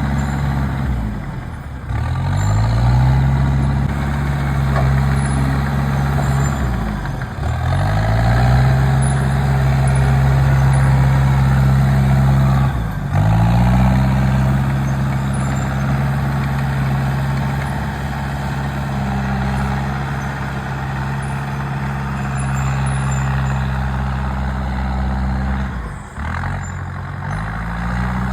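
Komatsu D39 bulldozer's diesel engine running steadily, its pitch briefly sagging and climbing back up four times.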